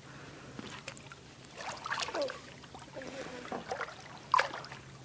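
Shallow lake water splashing and sloshing in irregular bursts, the sharpest splash about four and a half seconds in, with faint voices in between.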